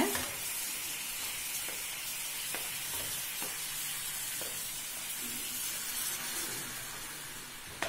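Jaggery lumps melting in a little water in a non-stick pan on low heat, sizzling and bubbling steadily, the first stage of making jaggery syrup. A wooden spatula scrapes and taps against the pan now and then as the lumps are stirred.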